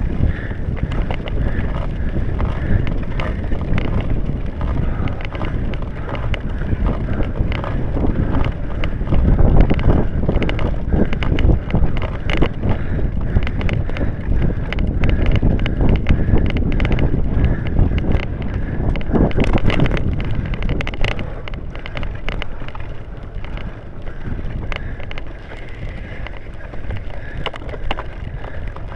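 Wind buffeting the microphone over the clatter of a cyclocross bike ridden fast over bumpy grass and mud, with frequent sharp rattles and knocks from the bike on the rough ground. It is loudest through the middle and eases off near the end.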